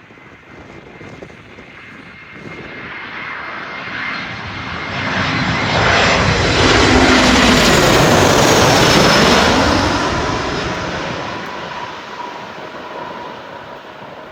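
Airbus A319 jet airliner coming in to land and passing by, its engine noise building to a loud peak about halfway through and then fading away, the pitch dropping as it goes past.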